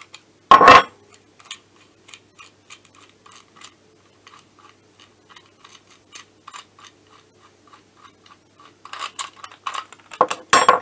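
A sharp metallic clank about half a second in, then faint, even clicks about four a second, and metal parts clinking near the end, as a steel screw-type bearing-fitting tool is set down, unscrewed and taken apart by hand.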